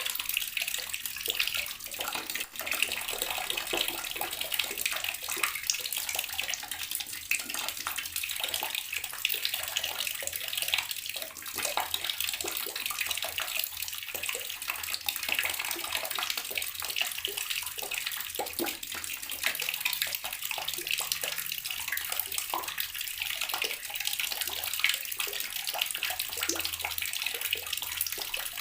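Water running steadily from a tap and splashing into a basin, a constant hissing spatter.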